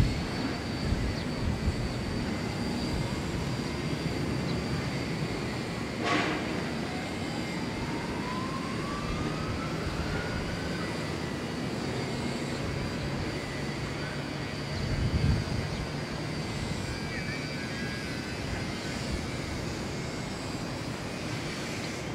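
Jet airliner engines at a distance: a steady rumble with a high whine, and a tone that rises slowly from about six to eleven seconds in.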